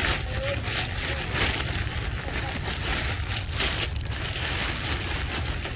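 Irregular crunching and rustling over a steady low rumble, with a faint short squeak about half a second in.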